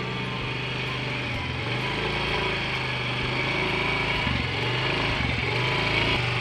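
Small motor scooter's engine running as it rides off slowly, getting a little louder in the second half.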